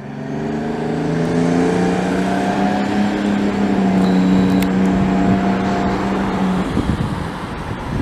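A fire truck's V8 Detroit Diesel engine pulls away under load. Its pitch climbs a little over the first few seconds, holds steady, then drops away near the end as the truck moves off.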